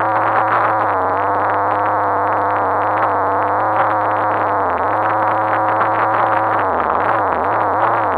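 RC car's motor heard through an onboard camera sealed in its housing, muffled: a steady hum made of several tones over a rough, rattling noise, with the pitch dipping and rising several times near the end.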